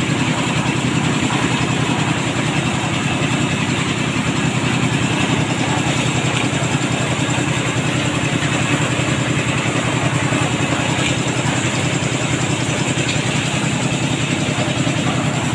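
Engine-driven concrete mixer running steadily, its drum turning.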